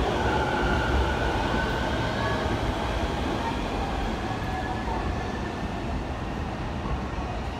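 Electric commuter train pulling away on the adjacent track: rumble with the whine of its traction motors shifting in pitch, slowly fading.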